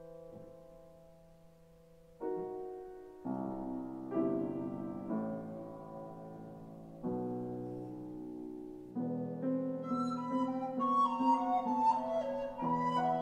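Recorder and piano playing a slow classical-style piece: held piano chords struck every second or two and left to fade, with a quicker run of short high notes coming in about ten seconds in.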